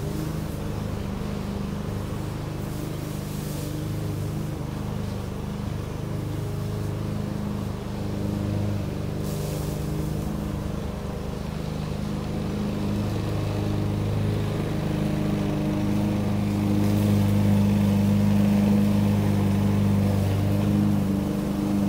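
Lawn mower engine running steadily, growing louder in the second half.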